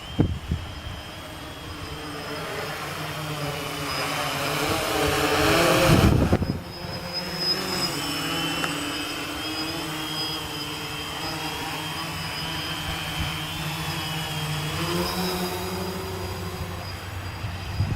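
Gaui 500X quadcopter in flight, its four electric motors and propellers giving a buzzing whine that wavers in pitch as the throttle changes. It grows louder for several seconds to a peak about six seconds in, drops suddenly, then holds steady.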